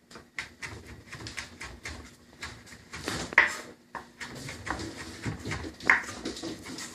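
Irregular knocks, taps and scrapes of a kitchen knife on a cutting board as finely chopped lemon peel is worked and cleared off, with two sharper clinks, one about three and a half seconds in and one near six seconds.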